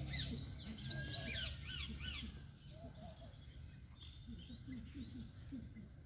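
A small bird singing a quick run of high, falling chirps for about two seconds, followed by a few fainter chirps, over a low steady rumble.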